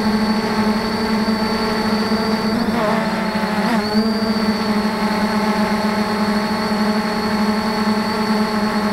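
3DR IRIS+ quadcopter's four electric motors and propellers whirring steadily at close range, as heard by the drone's own onboard camera. About three to four seconds in, the pitch dips and wavers briefly as the motor speeds change, then settles again.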